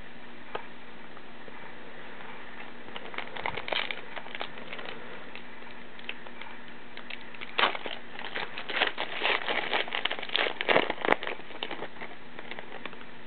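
Trading-card pack wrapper handled and torn open, crinkling. A few light rustles come about three to four seconds in, then a dense run of crackles from about seven and a half to eleven seconds in as the wrapper is torn and the cards are pulled out.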